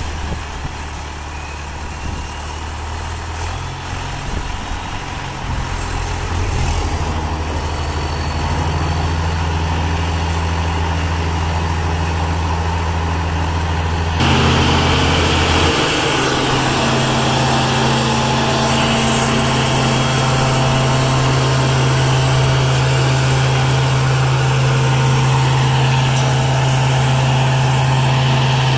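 Vector VecLoader vacuum loader's diesel engine idling, then stepping up to a higher steady speed about halfway through. It runs louder from there, with more hiss over the engine note.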